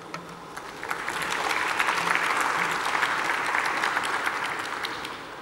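Audience applauding. The clapping builds about a second in and fades away near the end.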